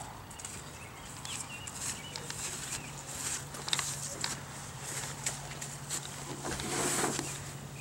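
Footsteps and rustling through grass, with scattered short clicks, and birds chirping faintly in the background; a louder rustle comes near the end. A low steady hum runs underneath.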